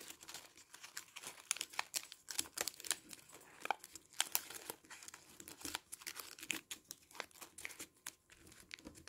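Colored origami paper crinkling and rustling as fingers fold and crease it, many small quick crackles.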